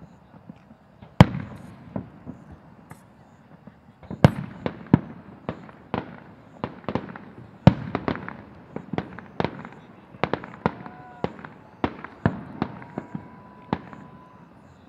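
Aerial firework shells bursting, each a sharp bang with a trailing rumble. One loud burst about a second in, then from about four seconds in a rapid irregular run of reports, two or three a second.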